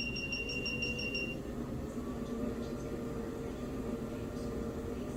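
Electric treadmill: a quick run of about seven short, high electronic beeps from its control, with its motor humming steadily and rising slightly in pitch.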